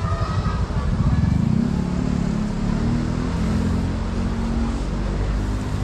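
Small motorcycle engine running close by. A fast low pulsing at first settles into a steady engine note about two seconds in.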